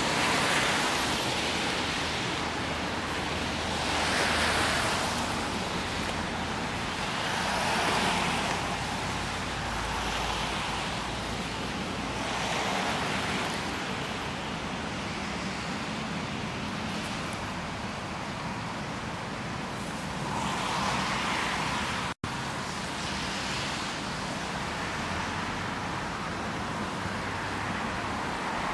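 Road traffic passing one vehicle at a time: the hiss of tyres on a wet road swells and fades every few seconds. The sound drops out for an instant about three-quarters of the way through.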